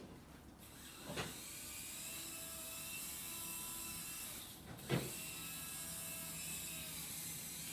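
Nano RC helicopter's small electric motor spinning its rotors with a steady faint whir and thin whine, while the helicopter fails to lift off. Two light knocks come, about a second in and about five seconds in.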